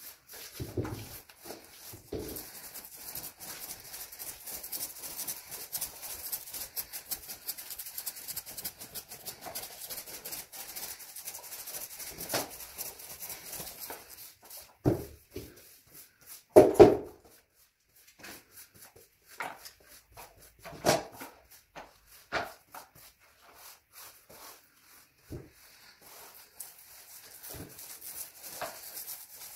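A paintbrush scratching over the wall in quick strokes. It is joined by scattered short, louder sounds, the loudest a close pair about halfway through.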